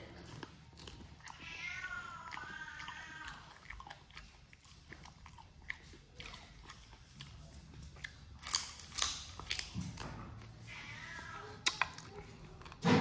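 Close-up eating sounds of a man chewing and sucking on cooked chicken feet: wet mouth clicks and smacking, with a few sharp crunches of bone and cartilage from about eight and a half seconds in and again near the end. A faint wavering high sound comes twice in the background.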